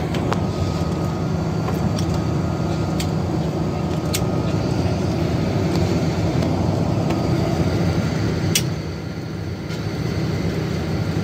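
Cabin noise inside a jet airliner rolling on the runway: a steady rumble from the engines and the ground roll, with a few sharp clicks.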